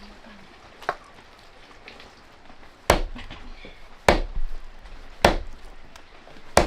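Chopping: a heavy blade striking a chopping surface, four hard blows spaced a little over a second apart after a lighter tap about a second in.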